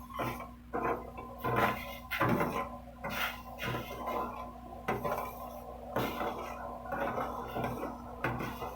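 Metal kitchen utensils clinking and scraping against a cooking pot: a string of irregular knocks and short scrapes, roughly one or two a second, over a faint steady hum.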